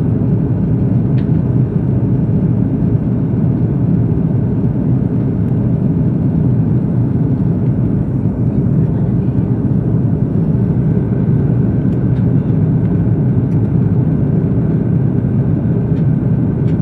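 Steady low cabin noise of an Airbus A330-200 airliner in flight, the engines and airflow giving an even, unchanging rumble.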